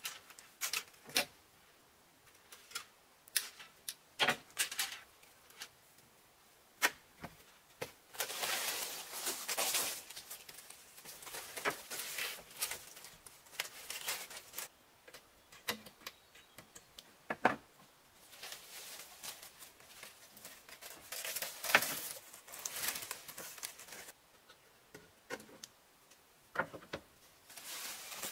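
Thin split-bamboo strips clicking, tapping and rustling as they are woven by hand through a bamboo frame. There are many separate sharp clicks, with longer stretches of rustling about a third of the way in and again past the middle.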